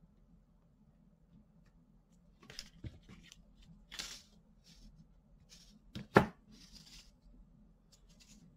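Fingers wrapping thin 30-gauge binding wire around a bundle of square jewellery wire: faint, scattered rustles and ticks, with one sharper click just after six seconds in.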